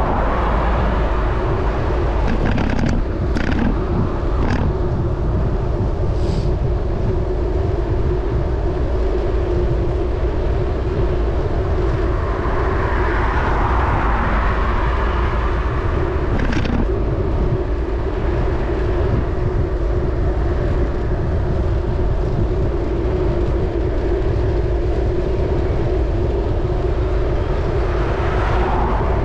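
Steady wind and road rumble from riding a bicycle on a paved road, with cars passing as a swelling whoosh three times: at the start, around halfway and near the end. A few sharp clicks or knocks come through in the first several seconds and once just past halfway.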